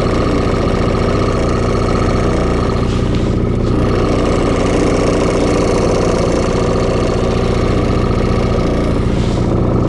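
Small boat outboard motor running steadily at slow trolling speed, with an even engine drone throughout.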